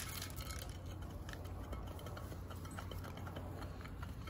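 Hens pecking at grain feed in a bowl: faint, irregular ticks over a low steady rumble.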